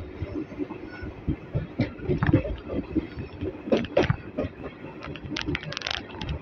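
ICF passenger coach of an Indian Railways express running on the track: a steady rumble with irregular knocks and clatters from the wheels and coach body, and a quick run of sharp clicks near the end.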